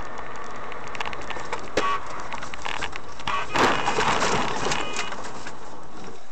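Steady in-car road noise, with a sharp click about two seconds in. From about three and a half seconds a loud rushing hiss lasts about a second and a half as the car ploughs into a snowbank, throwing up a spray of snow.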